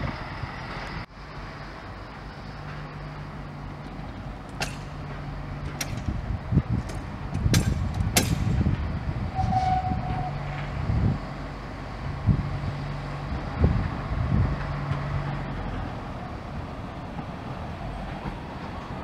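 Small narrow-gauge diesel shunting locomotive's engine running at low speed as it creeps forward over the yard trackwork, with a cluster of sharp clicks and knocks a few seconds in and a brief high squeal just before halfway.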